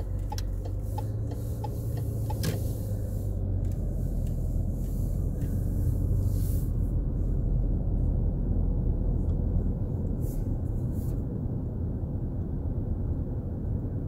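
Car engine and road noise heard inside the cabin, a steady low rumble that grows a little louder in the first half as the car picks up speed.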